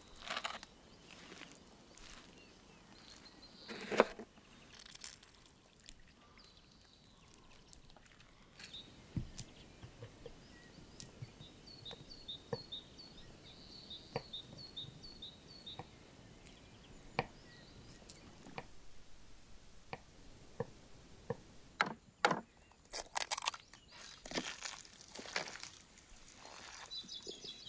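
Scattered knocks and taps, like work on wood, with one sharp knock about four seconds in and a dense run of clatter near the end. Midway a bird gives a quick series of short high chirps.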